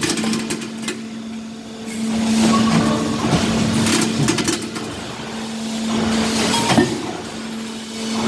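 A 5000-ton hydraulic cold-forging press with its pump running as a steady hum. Twice the hum swells into a louder rushing noise as the press cycles, with short metallic knocks and clinks from the pot blanks being handled.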